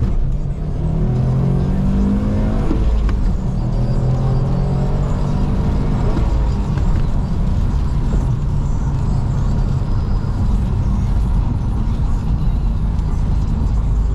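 Subaru STI's turbocharged flat-four accelerating hard through the gears, the revs climbing and dropping back at each upshift three times in the first six seconds, then running more evenly at freeway speed.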